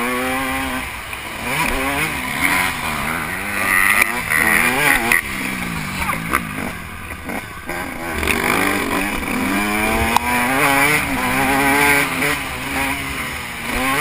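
Motocross bike engine revving hard under riding, its pitch climbing and dropping again and again as the throttle is worked and gears change.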